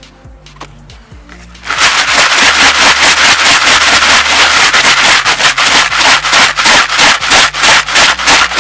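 Carp bait mix of pellets, sweetcorn and boilies being shaken and tossed in a plastic bucket. It is a loud, dense rattling that starts about two seconds in and comes in quick repeated surges.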